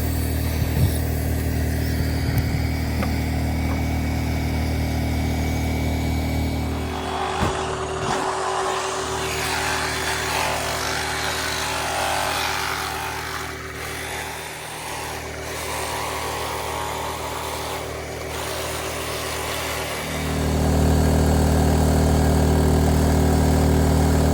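A motor running with a steady low hum. It drops away about seven seconds in, leaving a noisier, rustling sound, and comes back louder about twenty seconds in.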